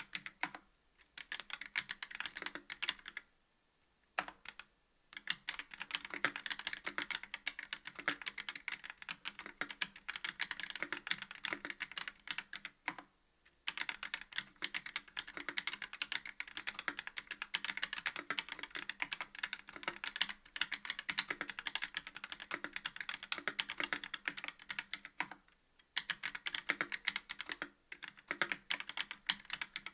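Continuous typing on a KBD67 V2 MKII mechanical keyboard with a brass plate, YOK Trash Panda linear switches and GMK keycaps: a dense, rapid run of key clacks, broken by a few short pauses.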